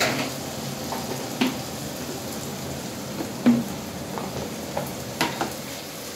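Tomatoes, onion and spices frying in oil in a frying pan, a steady sizzle, with several sharp clicks and knocks, the loudest about halfway through.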